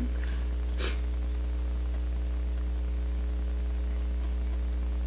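Steady low electrical hum with a light hiss, with one brief soft click about a second in.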